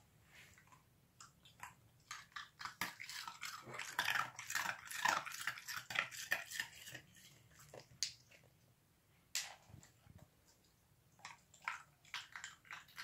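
Irish Terrier puppy chewing and crunching an ice cube: a quick run of sharp crunches, thickest a few seconds in, then slower, scattered bites.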